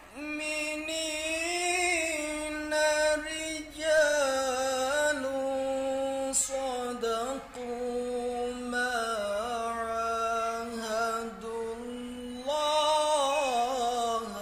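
A man's solo voice chanting Arabic recitation in maqam Nahawand, holding long notes with ornamented turns and short breaks between phrases; the last phrase goes higher.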